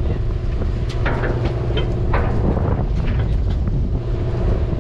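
Party fishing boat's diesel engine running steadily, a low drone, with wind buffeting the microphone. A few short clatters from gear on deck about one to two seconds in.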